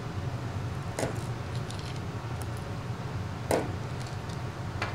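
Three small sharp clicks of small metal tools and phone parts being handled and set down during a smartphone teardown, over a steady low hum.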